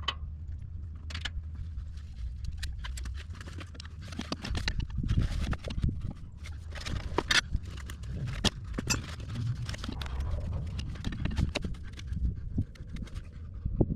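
Irregular metal clinks and knocks of hand tools working loose the hydraulic line fittings on a Cat 312 excavator.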